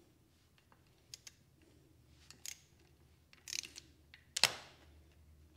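Scattered faint metal clicks and clinks of a torque wrench with a deep-well socket and a combination wrench being worked on the gear motor's cover nuts, being tightened toward 10 foot-pounds; one sharper, louder click comes about four and a half seconds in.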